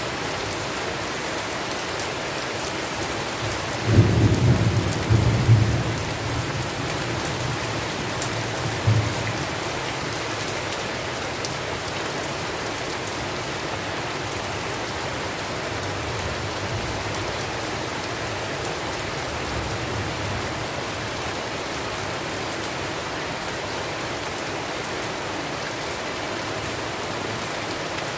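Steady rain with a thunderclap about four seconds in that rumbles for a couple of seconds. A shorter rumble follows near nine seconds, and fainter thunder rolls come later.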